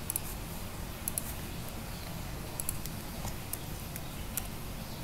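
Scattered clicks from a computer mouse and keyboard, some in quick pairs, as a length value is entered in drawing software, over a steady background hiss.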